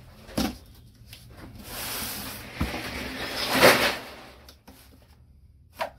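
A cardboard carton being opened by hand, its packing tape cut and its flaps worked open. There is a knock about half a second in, then two drawn-out scraping rustles of cardboard, the second louder, and a sharp knock near the end.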